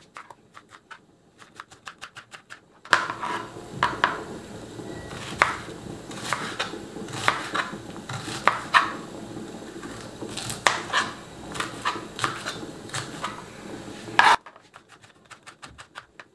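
Chef's knife chopping a small red onion on a cutting board: quick, even taps of the blade on the board. From about three seconds in until near the end the sound is louder, with a steady background hiss under heavier, irregular knocks.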